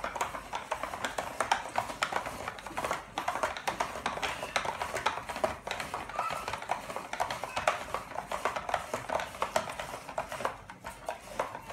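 Hand-cranked plastic spiralizer being turned, its blade shaving a courgette into spiral strands, giving a quick, uneven run of clicks and crunchy scraping.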